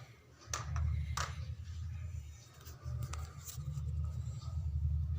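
Hands working a tripod's leg locks and telescoping legs as it is extended: a few light clicks and some rubbing, over a steady low hum.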